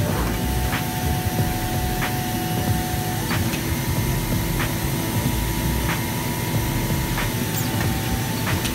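FK Group Universal 8 automatic fabric cutter running: a steady mechanical rush from the machine with a few held tones that start and stop, and light clicks about every second and a bit. The cutting head is working through a 100-ply stack of coated fabric held down under plastic film.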